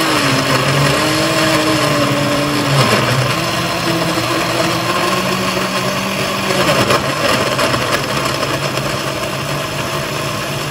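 Countertop jug blender running at speed, blending a thick smoothie; the motor's hum wavers up and down in pitch as the load in the jug shifts.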